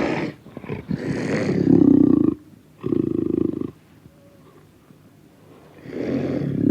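Panther roaring and growling in harsh calls: a long call, a shorter one, then after a pause of about two seconds another call near the end.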